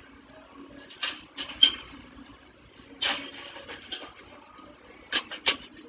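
Short bursts of scraping and rubbing: one about a second in, a longer rough stretch around three seconds, and two quick ones near the end.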